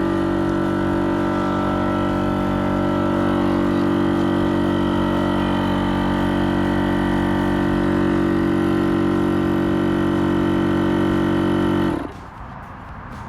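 Shark2S rechargeable electric inflation pump running steadily, a constant motor hum, as it pumps up an inflatable kayak toward its 10 psi setting; it cuts off abruptly about twelve seconds in.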